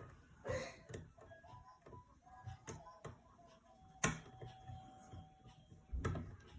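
A tension wrench and lock pick scraping and clicking inside a lock's keyway while it is being picked. There are a few sharp clicks, the loudest about four seconds in, and faint thin squeaks from metal rubbing in between. The lock has not opened yet.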